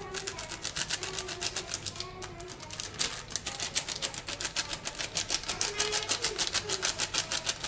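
A packet of ground red pepper shaken and tapped over a bowl, its wrapper crinkling in rapid ticks, several a second. The ticks grow faster about three seconds in.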